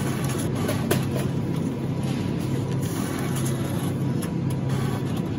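Steady low hum of supermarket background machinery, with a sharp click about a second in and a few fainter clicks as payment is fed into a self-checkout's cash slot.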